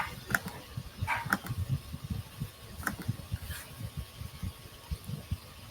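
A computer mouse clicking a few times, short sharp clicks about a second apart, over a low, irregular knocking.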